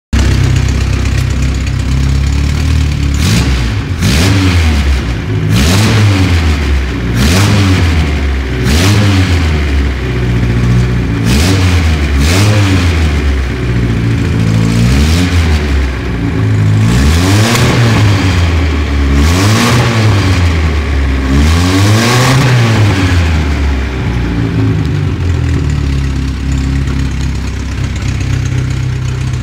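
Four-cylinder engine of a Vauxhall Nova GTE breathing through a bank of Kawasaki ZX-9R motorcycle carburettors, on its first run with them. It is blipped again and again, about a dozen quick revs that rise and fall, then settles to a steady idle for the last several seconds.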